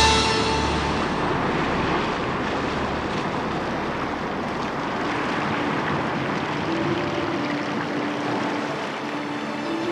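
Steady rushing noise of surf and strong wind from a stormy sea. Faint held musical notes come in about seven seconds in.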